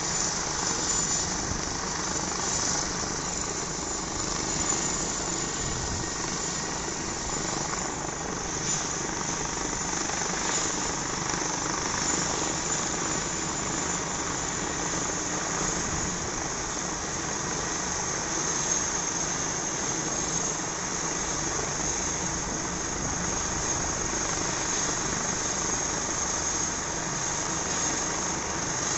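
Air ambulance helicopter running on the ground with its main rotor turning: steady turbine and rotor noise with a constant high whine.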